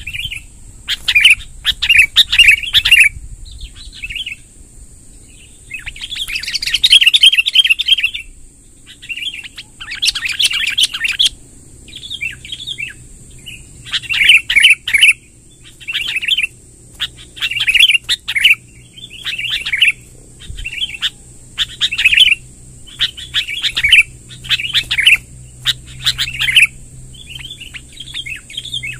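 Sooty-headed bulbuls singing, short bubbly phrases repeated every second or two, with a few longer runs of song. A steady faint high tone runs underneath.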